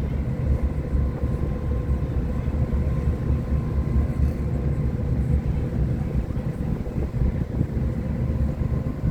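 Wind buffeting the microphone aboard a moving car ferry: a steady, uneven low rumble, with a faint steady hum from the ferry's engines beneath it.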